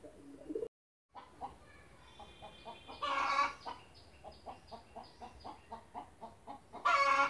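A chicken clucking in a steady run of short clucks, about three a second, with two louder, drawn-out calls, one about three seconds in and one at the end.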